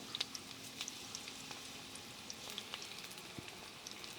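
Bhajiya fritters deep-frying in hot oil: a steady sizzle with scattered small crackles and pops.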